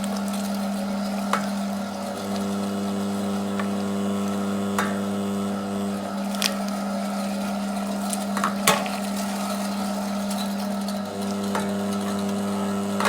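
FAMA electric meat grinder running with a steady motor hum, with a few short sharp clicks and knocks over it, the loudest about two-thirds of the way through.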